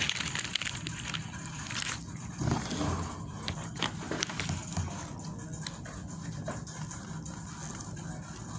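Small clicks, knocks and scrapes from a toddler at a plate of boiled corn on the cob, with his soft breathing and mouth sounds, over a low steady hum.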